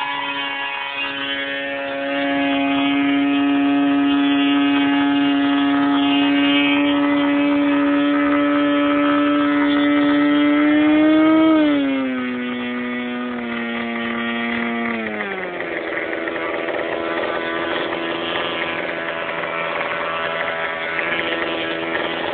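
OS 75 two-stroke glow engine with a stock muffler and a 14x6 propeller, running during a break-in run on 15% nitro fuel. It holds a steady high speed for about eleven seconds and rises slightly. It is then throttled back, its pitch dropping in two steps to a lower, steady speed.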